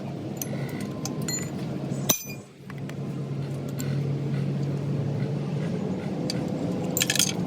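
Steady low mechanical hum with scattered sharp metallic clinks and taps, a sharp click about two seconds in and a short cluster of clinks near the end.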